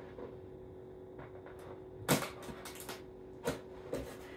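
Handling noises: a sharp click about two seconds in, then a few lighter clicks and taps and another knock near the end, over a faint steady hum.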